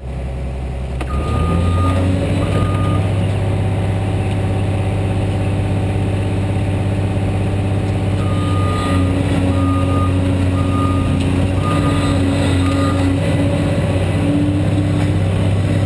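Caterpillar 345D excavator's diesel engine running steadily, coming up to higher revs about a second in. A backup-style alarm beeps on and off over it, twice near the start and then a run of about six beeps in the middle.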